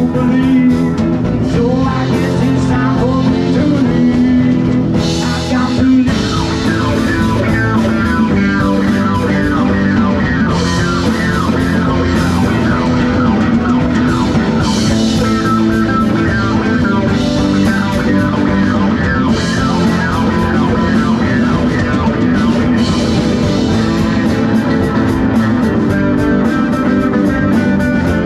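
Live rock band playing: acoustic and electric guitars, bass guitar and drum kit, with cymbal crashes every few seconds and a quick, steady hi-hat beat near the end.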